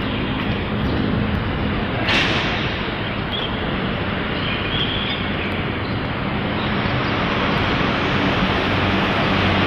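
Steady urban street traffic noise, a dense rumble and hiss with a faint low engine hum, and a brief louder rush about two seconds in.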